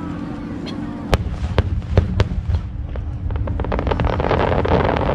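Aerial fireworks shells bursting: about five sharp booms in the first half, followed by a rapid crackling that grows denser near the end.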